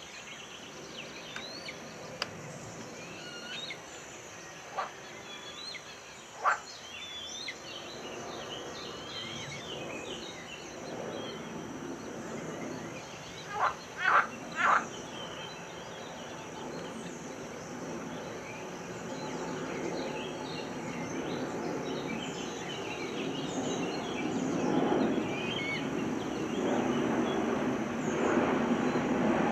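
Outdoor bird ambience: many small birds calling and singing in the background, cut by five short, loud, sharp calls, two of them early on and three in quick succession about halfway through. A low rumble grows steadily louder over the last ten seconds.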